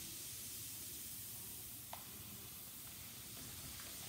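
Faint, steady fizzing hiss from an LOL Surprise Pearl's fizzing layer, still fizzing after being lifted out of the water; a single light click about two seconds in.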